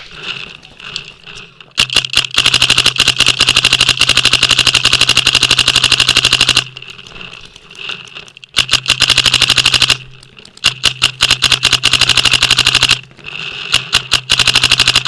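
Paintball marker firing rapid strings of shots, the longest nearly five seconds, with short pauses between the strings.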